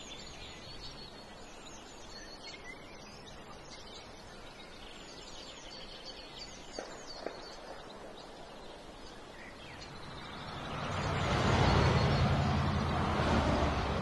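Street ambience with small birds chirping over a steady background hush. About ten seconds in, a vehicle passing on the road brings a rising rush of tyre and engine noise that peaks a couple of seconds later and slowly fades.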